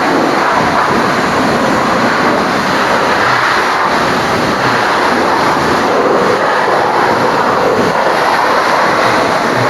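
High-pressure water jet spraying onto a Scania 114L truck during a wash, a loud, steady rushing hiss.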